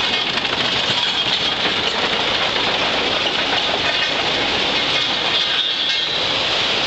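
1935 Caterpillar Forty crawler tractor's four-cylinder gasoline engine running steadily.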